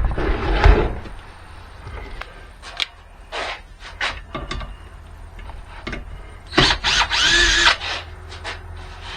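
Tool clatter and knocks while a seized air compressor is being taken apart, then a power drill run in a short burst, its whine rising and falling, about two thirds of the way through.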